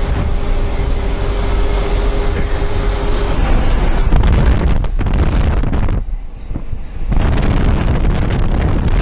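A truck on the move: engine rumble and road noise with wind buffeting the microphone. A steady thin tone sounds for the first three seconds, and the loudness dips briefly about six seconds in.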